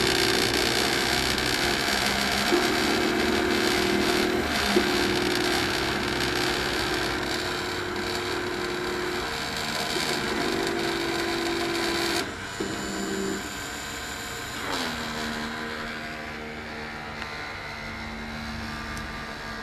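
Homemade CNC milling machine running: the rotary-tool spindle whirs steadily while the stepper motors hum in short moves that start and stop every few seconds. About twelve seconds in, the high whir drops away, and after a brief downward glide a lower steady hum remains.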